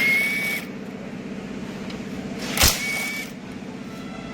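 Verna petrol car engine idling steadily with a fast, even pulse. Two sharp metallic clicks with a short high ring, one at the start and one under three seconds in.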